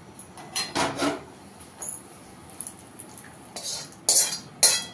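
Steel spoon scraping thick curry gravy out of a metal kadhai into a glass bowl: a scrape about a second in, then several quick, louder scrapes of metal on metal near the end.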